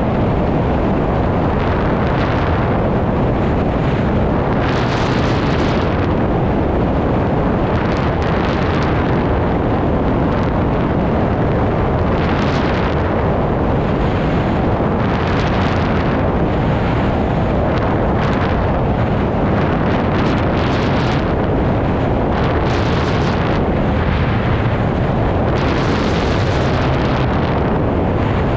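Rushing airflow buffets the camera's microphone on a hang glider in flight. It is a loud, steady rumble with hissy gusts that swell every few seconds.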